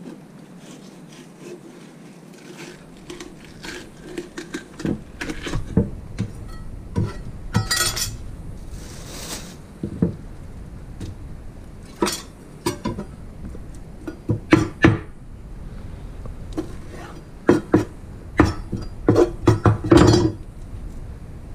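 Irregular knocks and clinks of a chef's knife and a wooden cutting board being handled over a stainless steel kitchen sink, coming faster and louder near the end.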